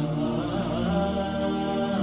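Background vocal music: a voice chanting in long held, gliding notes.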